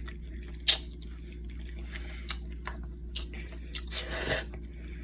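A person chewing a mouthful of spaghetti, with a few short wet clicks from the mouth and a longer noisy sound about four seconds in.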